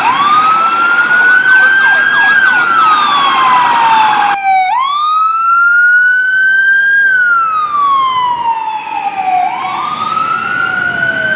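Fire apparatus siren wailing loudly. Each cycle rises quickly in pitch, then slides slowly back down, and a second siren's wail overlaps near the end. A harsh noise runs under the siren for the first four seconds and cuts off abruptly.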